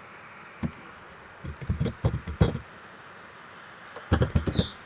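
Computer mouse and keyboard clicking in a few quick clusters of short taps, as a selection is drawn and filled in Photoshop.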